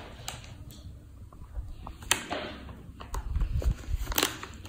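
A kitten biting and gnawing at a meat-flavoured cat treat stick held out by hand: scattered small clicks, two sharper ones about two seconds in and near the end, and a few dull knocks a little after three seconds.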